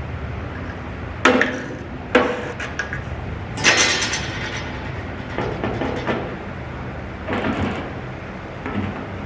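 Slide hammer's sliding weight slamming against its stop as it pulls on a stud welded to dented sheet metal: sharp metallic knocks with a ringing tail, three in the first four seconds, the third the loudest, then several softer knocks.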